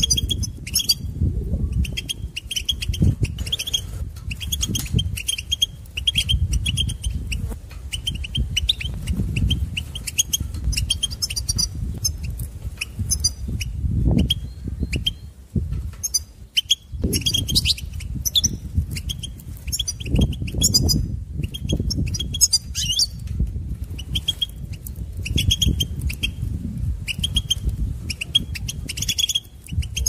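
European goldfinch twittering in short runs of high chirps, with a brief pause about halfway through, over a low uneven rumble.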